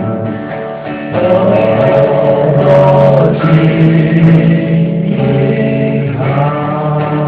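Live acoustic trio performing: voices singing a song with guitar accompaniment.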